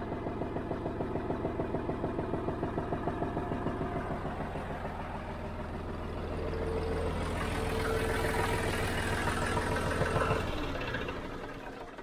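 John Deere 5055D tractor's three-cylinder diesel idling with steady, even firing pulses, run to circulate freshly changed hydraulic oil. About six seconds in a higher steady whine and a hiss join it. Near the end the sound dies away.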